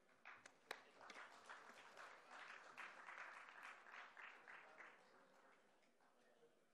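Faint audience applause, a patter of hand claps that thins out and stops about five seconds in.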